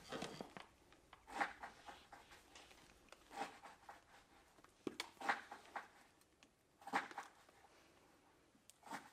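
Faint bursts of rustling and shuffling from a dancer's body and feet moving on the floor, coming about every two seconds with quiet between, in a small room.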